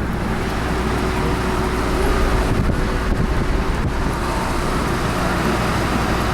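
Steady road and engine noise of a moving car, heard from inside the car.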